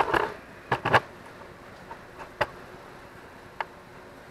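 A few sharp metallic clinks and knocks from tools and metal parts being handled. The loudest are two together about a second in, followed by two fainter single ticks.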